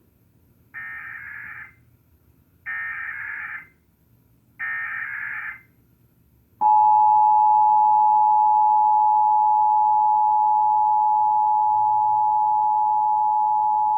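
Emergency Alert System test tones: three short bursts of the digital header data, about a second each and about a second apart, then a loud, steady two-tone attention signal starts about six and a half seconds in and holds.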